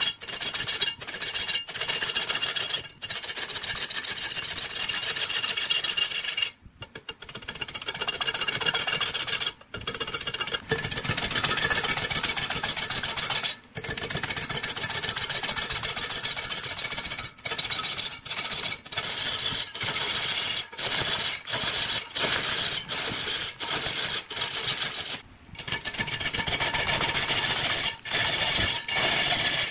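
Turning tool cutting into wood spinning on a large wood lathe: a steady scraping, hissing cut, broken by many brief gaps.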